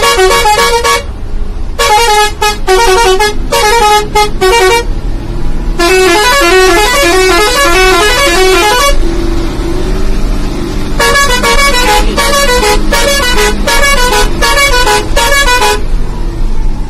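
Tourist bus's multi-tone musical horn sounding in loud bursts of rapid short notes that step between pitches like a tune, three long bursts after one that ends about a second in. The bus engine hums in the gaps.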